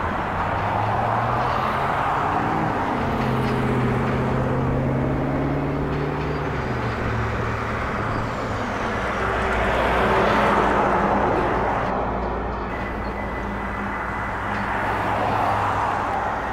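Covered hopper grain cars of a freight train rolling past: a steady rumble of wheels on rail that swells and fades as each car goes by. A low droning tone that shifts in pitch runs through the first seven seconds, and a thin high squeal comes in near the end.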